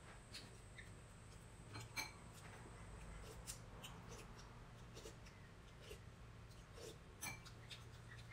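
Faint eating sounds while eating by hand: scattered small clicks of chewing and mouth noises, the sharpest about two seconds in, over a low steady hum.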